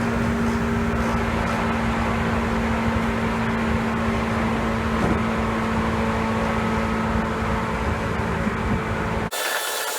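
Seibu 2000 series electric train car running, heard aboard: a steady rumble with a constant droning hum at one pitch, the abnormal noise of motor car KuMoHa 2413 that the uploader suspects may be a resonance. About nine seconds in it cuts off abruptly to a thinner, higher-pitched noise with no low rumble.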